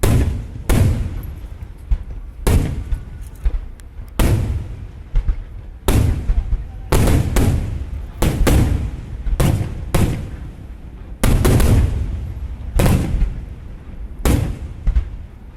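Aerial fireworks shells bursting in a loud, irregular barrage, roughly one or two booming bangs a second, each trailing off in a rumbling echo.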